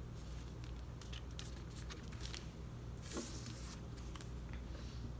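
Paper being handled: faint rustles and light taps, with a brief louder rustle about three seconds in, over a low steady hum.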